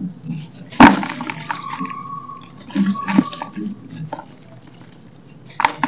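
A chunk of roasted dirt cracking and crumbling in the hands, with crumbs falling into a tub of water. There is a loud sharp crack about a second in, smaller crackles after it, and another sharp crack near the end.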